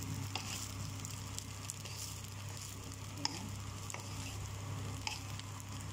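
Egg fried brown rice sizzling in a non-stick pan as a wooden spatula stirs and scrapes through it, with scattered light clicks from the spatula. A steady low hum runs underneath.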